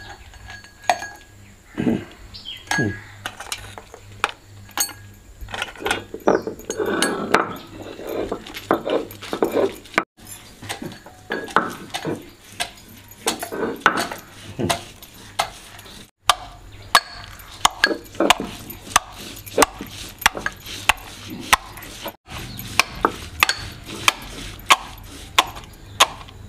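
Whole spices being crushed on a flat grinding stone (sil-batta) with a stone roller, making rough scraping and knocking, mixed with sharp metallic clinks of a steel pestle pounding in a steel mortar, at about one to two strikes a second in the latter part.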